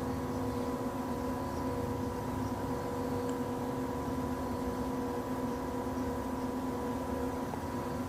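Steady background hum: room tone with a low rumble and a few held, unchanging tones, like ventilation or sound-system noise.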